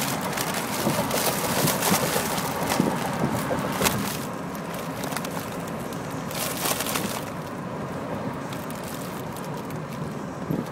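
Foil helium balloon crinkling and rustling right against the microphone in dense crackles, for the first four seconds and again briefly a little past the middle, over steady car road noise.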